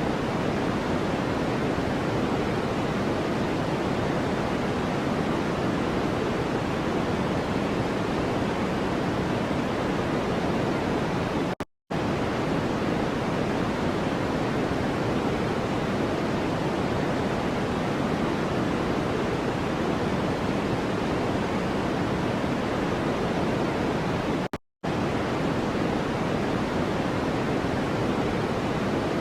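Steady white-noise track, a smooth hiss heavier in the low-middle range than in the treble, cutting out for a split second twice, about 13 seconds apart.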